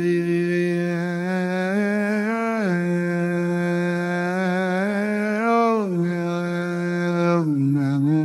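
Wordless humming of a slow devotional melody, long held notes that glide up and back down a few times, opening a sung sholawat before the lyrics begin.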